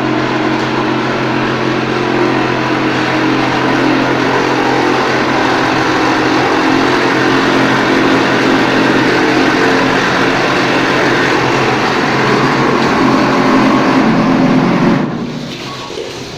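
Automatic wall-plastering machine running under its own power: a steady motor hum with a noisy mechanical whirr that cuts off suddenly about fifteen seconds in as the machine stops.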